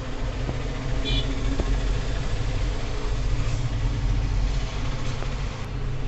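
Steady low engine-like rumble, with a short high-pitched beep about a second in.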